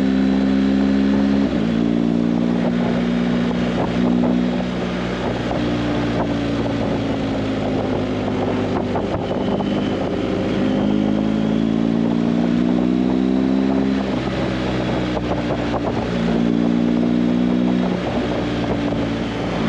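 Motorcycle engine running on the road, its note climbing and then dropping abruptly several times, as with gear changes.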